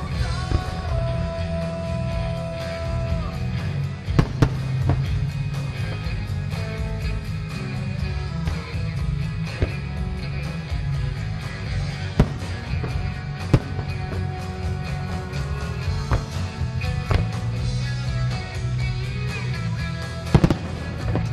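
A rock song playing loudly, with firework shells launching and bursting as sharp bangs every few seconds, several in quick succession near the end.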